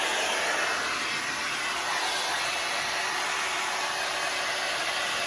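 The Knot Dr. blow dryer running on its low setting: a steady rush of air with a faint steady hum under it.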